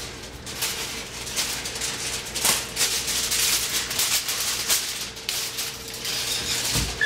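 Aluminium foil crinkling and rustling in irregular bursts as a sheet is pulled off and handled, with a soft low thump near the end.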